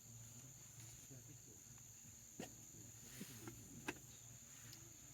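Near silence with a faint, steady, high-pitched insect drone, broken by two light clicks, one about halfway through.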